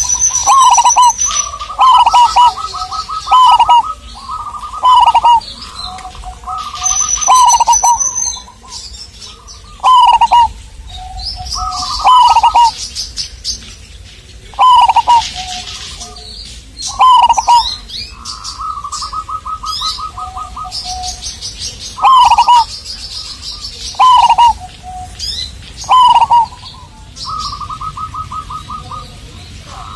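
Zebra dove (perkutut) cooing over and over: a phrase of quick staccato, stuttering coo notes every one to three seconds. Small birds chirp high and faint between the phrases.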